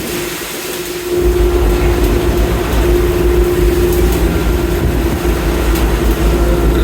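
Longline fishing boat's machinery running steadily during the line haul: a low rumble with a steady humming tone over it. The rumble drops away briefly near the start and comes back about a second in.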